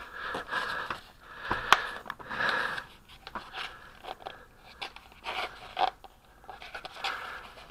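Putty knife scraping and prying around the inside of a plastic tub to free a lump of glazing putty, with the tub handled and turned: irregular scrapes and rubs, and one sharp click a little under two seconds in.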